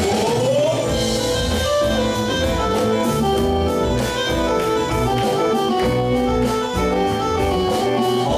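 Live rock band playing an instrumental passage: held keyboard notes over electric guitar, bass guitar and drums, with a pitch slide rising in the first second.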